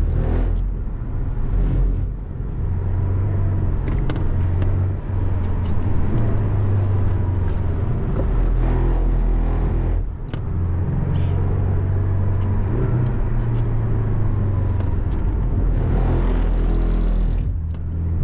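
Porsche 718 Cayman's engine heard from inside the cabin, driven hard around a wet track, with several brief dips in level along the way.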